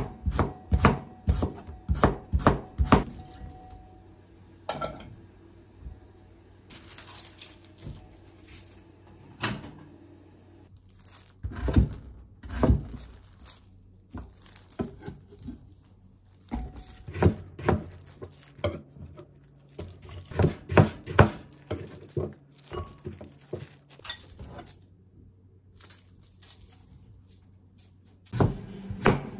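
Chef's knife cutting daikon radish and peeled taro on a wooden cutting board: several runs of quick knocks of the blade on the board, with quieter gaps between.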